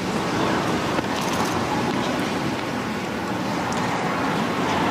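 Steady murmur of a large stadium crowd on a tennis court between points, with one faint tap about a second in.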